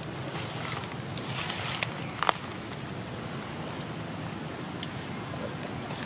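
Steady low outdoor rumble with a few sharp clicks and crackles scattered through it, the loudest a little past two seconds in.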